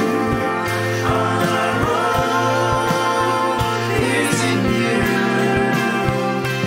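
Christian worship song: singing over instrumental backing with a steady beat.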